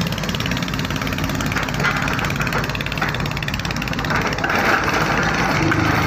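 Excavator-mounted vibro hammer vibrating a steel sheet pile into the ground: a rapid, even mechanical rattle over the Hyundai excavator's running engine, growing a little louder about four and a half seconds in.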